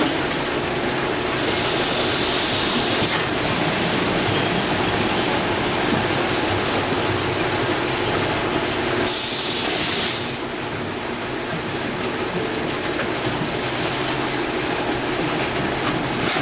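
Six-head automatic net weigh filling machine running with a steady mechanical clatter and hum, broken twice by a short hiss lasting a second or so, about a second and a half in and again about nine seconds in.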